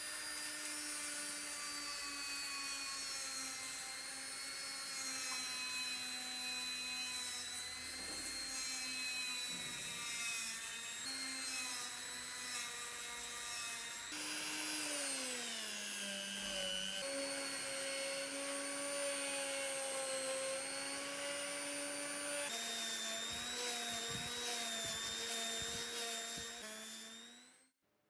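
Small electric motor of a power tool running steadily with a whine. About halfway through, the pitch slides down and settles lower, and it changes abruptly a few other times.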